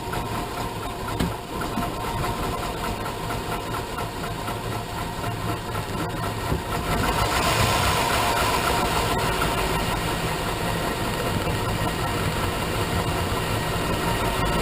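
Chevrolet 6.0 Vortec V8 of a 2001 Suburban 2500 idling roughly after a cold start in freezing weather, its revs going up and down. It gets louder about halfway through.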